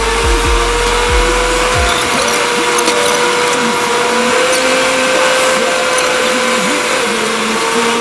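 A steady whine inside a moving car, holding almost one pitch, with faint short low notes under it.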